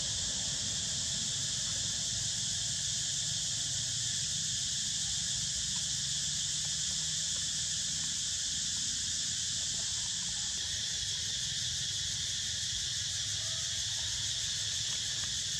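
Steady high-pitched drone of a forest insect chorus, with a low steady rumble underneath.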